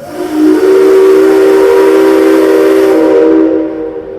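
Whistle of the C57 135 steam locomotive blown once, a long, loud chord of several steady tones over a hiss, lasting about three and a half seconds before it dies away.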